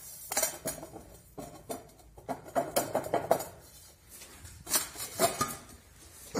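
Irregular clinks and light knocks of hard objects, with a busier spell of clatter in the middle.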